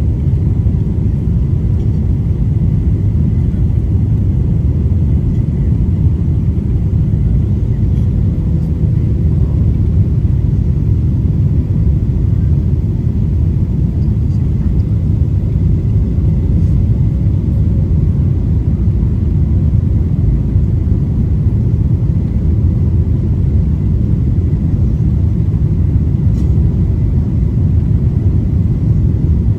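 Steady low rumble of jet engines and rushing air heard inside an airliner cabin on final approach with the flaps extended, with a faint steady hum above it.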